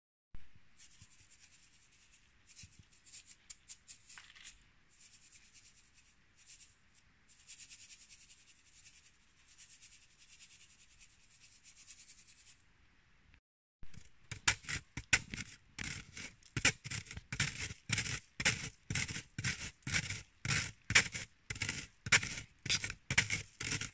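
Powdered sugar being sifted through a fine metal mesh sieve: a faint scratchy rustle as the sieve is shaken, then from about fourteen seconds in, louder quick regular shaking strokes, about two or three a second.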